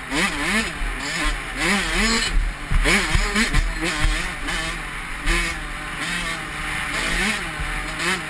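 Honda CR85 two-stroke dirt bike engine revving, its pitch rising and falling every half second or so as the throttle is opened and closed. Wind rushes over the helmet microphone, and there are a few knocks about three seconds in.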